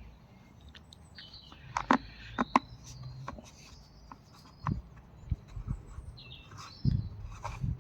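Scattered sharp clicks and knocks from the chainsaw's parts being handled as the chain, bar and side cover are fitted back on. Birds chirp faintly in the background.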